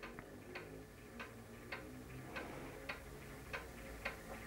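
Faint regular ticking, a little under two ticks a second, over a low hum, from a slowly turning motorised display turntable.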